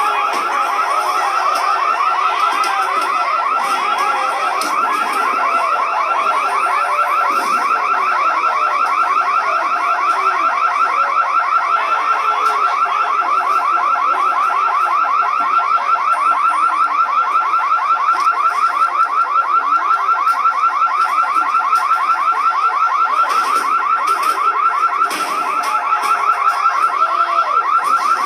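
An electronic alarm sounding continuously as a fast, even run of high beeps. Faint wavering voices sit underneath it.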